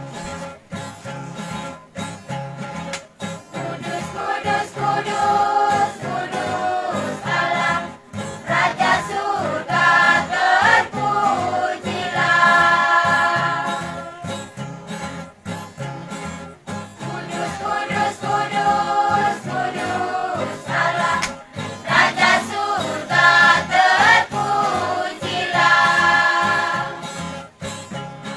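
A large church choir singing a worship song in full voice, accompanied by strummed acoustic guitars keeping a steady rhythm. The voices swell in long held phrases, loudest about a third of the way in and again near the end.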